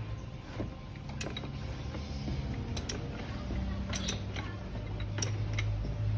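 Scattered metallic clicks and creaks of a hand tool working loose the idler pulley's mounting bolt, over a steady low hum.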